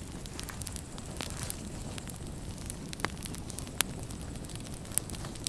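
Campfire crackling: irregular sharp pops and snaps over a low steady rumble.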